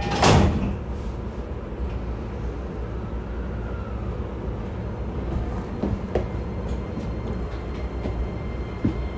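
Commuter train's sliding doors shutting with a short loud thud just after the start, then a steady low rumble inside the carriage as the train stands at the platform.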